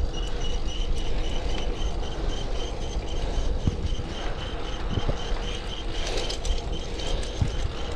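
Riding noise from a bike whose chain has been over-tightened with no slack left: a high whine that pulses about four times a second over a steady low rolling rumble.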